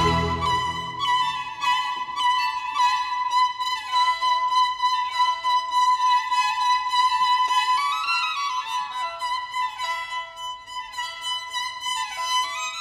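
Background music: a solo violin playing a melody, with the low accompaniment dropping away in the first second or two.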